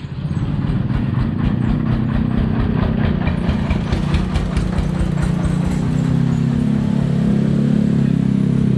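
Small motorcycle engines running close by as a motorised three-wheeled cart and then motorcycles pass over the crossing, with a rapid putter from the exhausts. A low steady engine drone grows stronger in the second half.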